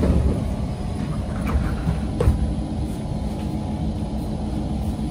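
Inside a Kawasaki C151 metro train car: the sliding doors shut at the start, a single clunk follows about two seconds later, and a steady low rumble and hum of the train carries under it all.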